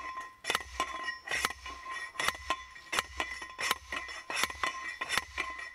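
Hand post driver slamming repeatedly onto the capped top of a steel well pipe, about one strike every 0.7 seconds, each a sharp metallic clank that rings on. It is driving a sand point well into hard ground, with the pipe advancing only about 2 inches.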